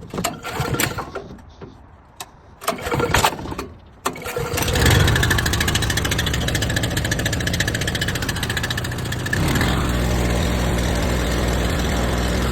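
Pressure washer's gas engine starting up about four seconds in, after a few clicks and knocks, then running steadily, a little louder for the last few seconds. It runs with the water supply cut off, to push the remaining water out of the pump for winter.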